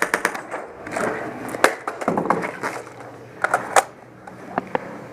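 Irregular sharp clacks and knocks from hard objects, some coming in quick clusters of several.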